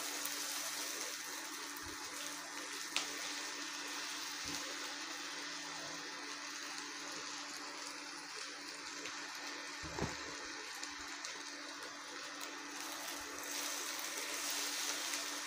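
Tomatoes, chillies, garlic, onion, sesame and cashews sizzling steadily in oil in a pan on low heat, stirred with a silicone spatula. Two short knocks of the spatula against the pan, about three seconds and ten seconds in, over a faint steady hum.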